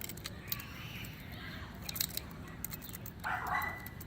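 Small clicks and taps of metal clipper parts being handled while the blade is taken off a Wahl hair clipper, with a brief higher-pitched sound near the end.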